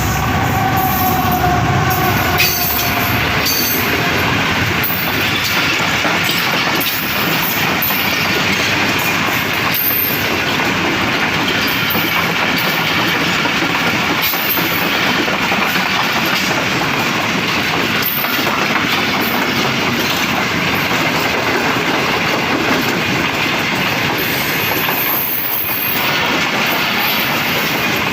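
Passenger train rolling past at close range: a loud, steady rush of wheel and rail noise from the coaches that runs on without a break.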